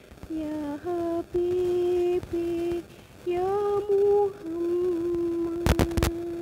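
A woman's voice singing a slow, unaccompanied sholawat (Islamic devotional chant) melody in a string of held notes with short breaths between them, closing on a long note hummed with closed lips. Two sharp clicks, the loudest sounds here, come close together near the end.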